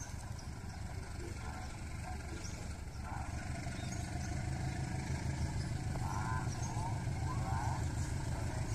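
Diesel-electric locomotive engine running with a low rumble that grows louder from about three seconds in as the train approaches.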